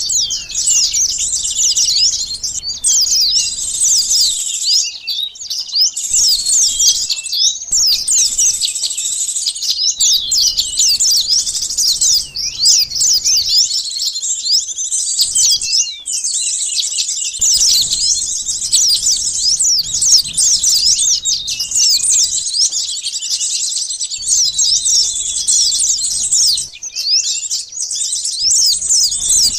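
Rapid, overlapping high-pitched chirps and twitters from small songbirds, a continuous bird-lure call recording of sunbirds and other small birds, used to draw wild birds in.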